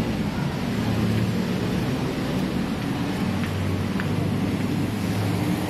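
City street traffic: a steady wash of noise with the low hum of vehicle engines running close by.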